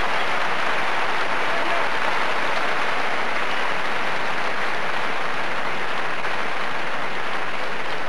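Large arena crowd applauding, a dense, steady clapping.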